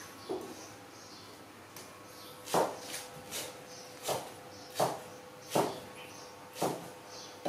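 A baby monkey knocking against a low wooden bench as it rolls and flails on it: about eight short, light knocks, irregularly spaced, beginning a couple of seconds in.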